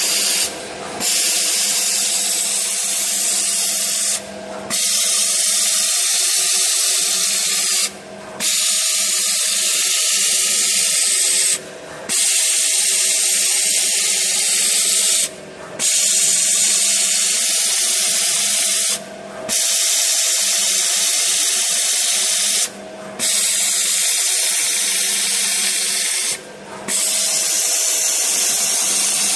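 Single-shaft adhesive tape roll cutting machine running: a loud, steady high hiss over a faint motor hum. It breaks off for a moment about every four seconds as its cutting cycle repeats.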